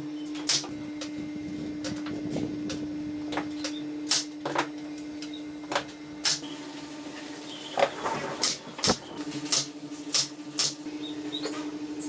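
Pneumatic brad nailer firing nails into wooden roof trim, one shot at a time: about a dozen sharp shots at irregular intervals, over a steady low hum.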